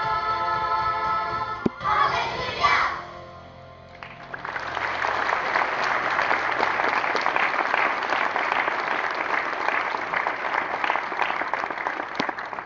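A children's choir holds the last sung notes of a hallelujah song, which end about three seconds in. After a short lull the congregation applauds steadily.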